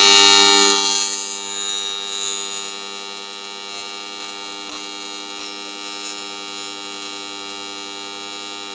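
AC TIG welding arc on an aluminum plate, buzzing steadily over a hiss; louder and harsher for about the first second, then settling to an even buzz.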